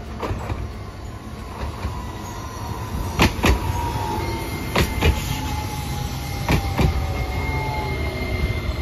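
Hiroden Greenmover Max articulated low-floor tram passing close by. Its wheels clack over rail joints in three double beats, over a steady rumble, with a motor whine that slowly falls in pitch.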